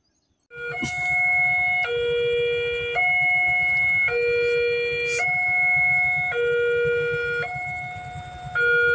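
Electronic two-tone warning alarm starting abruptly about half a second in, then alternating steadily between a lower and a higher tone, each held about a second, over a steady low rumble.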